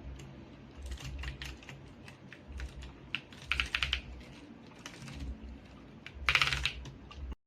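Typing on a mechanical keyboard fitted with XDA-profile PBT keycaps: irregular keystrokes with two fast flurries of clacks, about three and a half seconds in and again about six seconds in.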